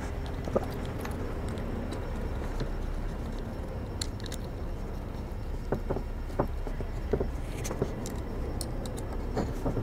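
Scattered light clicks and small metallic taps of two screws being turned in by hand with a small tool to fix a quiver bracket to a crossbow frame, over a low steady hum.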